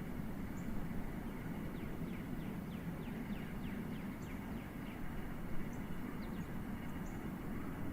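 Steady low rumble of distant jet aircraft overhead, with small birds chirping in quick, downward-sliding notes and a few short high peeps.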